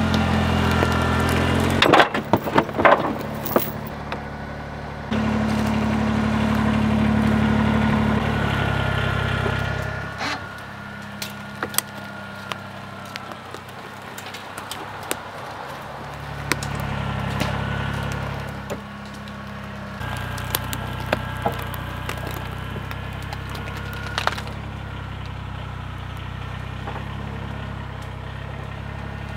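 Compact tractor engine running steadily, its note shifting abruptly a few times, with many sharp cracks and snaps of twigs and branches breaking, thickest in the first few seconds.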